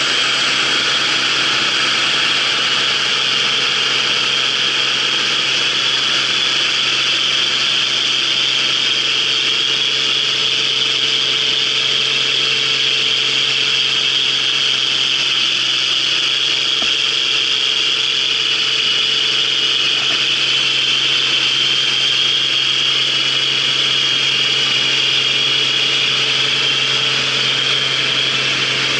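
CLAAS Dominator 88 combine harvester running steadily, its engine and machinery making a constant hum with a high, steady whine over it.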